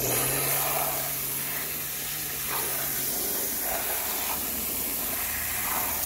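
A jet of water spray hissing steadily as it blasts mud off a plastic toy car, cutting off suddenly at the end. A low steady hum runs under it for about the first half.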